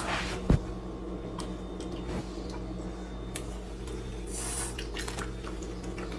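Aerosol can of whipped cream giving a short hissing spray about four seconds in, over a steady low hum. A single sharp click sounds about half a second in.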